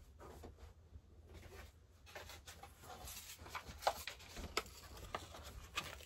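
Faint rustling and small clicks of household items being handled and rummaged through, starting about two seconds in, with one sharper click near the middle.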